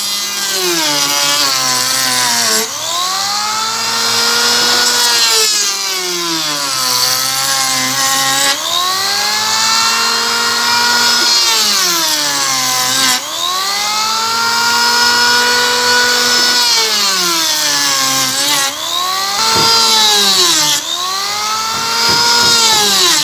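Electric hand planer running and shaving the plywood edge of a small boat hull. Its motor whine drops in pitch each time the cutter bites into the wood and climbs back as the load eases, about six times over.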